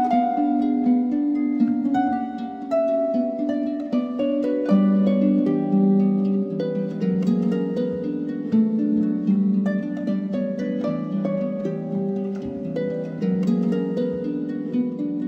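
Background music of plucked string notes, harp-like, many notes following one another in a melody.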